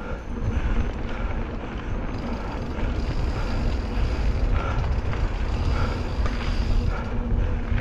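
Mountain bike ridden on a dirt singletrack: a steady deep rumble of wind on the camera and tyres rolling over dirt, with scattered clicks and rattles from the bike.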